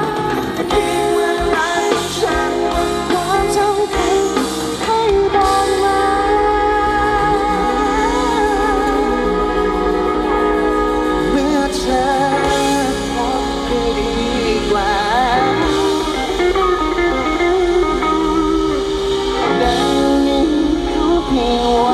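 Live band playing a song: a singer's melody over guitars and bass, loud and continuous.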